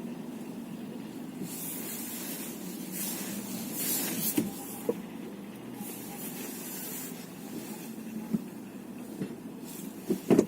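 Car on the move: a steady low rumble of road and engine noise with a few passing stretches of hiss. Sharp knocks come now and then, with a louder cluster of them near the end, the kind of knock that shows up only when the car is moving.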